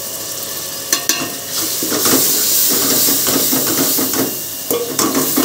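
Tomatoes and masala sizzling in hot oil in a metal pot while a wooden spoon stirs them, the sizzle swelling loudest in the middle. A few sharp knocks of the spoon against the pot, about a second in and near the end.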